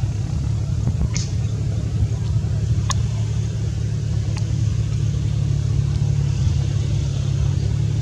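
Steady low rumble, like a motor running nearby, with a short high chirp about a second in and a sharp click about three seconds in.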